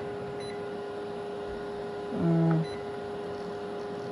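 Panasonic microwave's keypad beeping as it is set and started: a few short beeps, and a louder, longer tone about two seconds in, over a steady hum.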